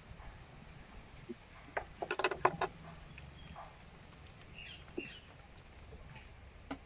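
A metal spoon clinking quickly several times against a ceramic bowl of batter about two seconds in, followed by a few faint high squeaks.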